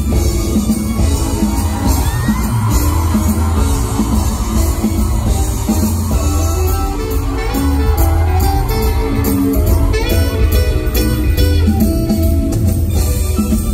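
Loud music with guitar over a steady bass and beat.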